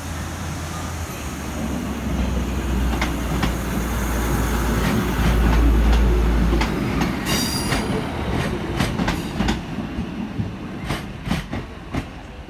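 Class 156 Sprinter diesel multiple unit pulling away and passing close by, the low drone of its underfloor Cummins diesel engines loudest about five to six seconds in, then falling away. As it draws off, its wheels click rhythmically over rail joints and points.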